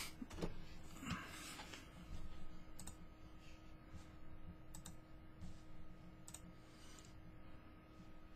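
Faint, scattered computer keyboard taps and mouse clicks, with a loud knock right at the start as the webcam is handled.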